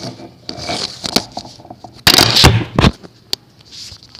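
Handling noise from the recording phone as it is moved about: sharp knocks and rubbing crackle, with a loud, harsh burst lasting almost a second about two seconds in.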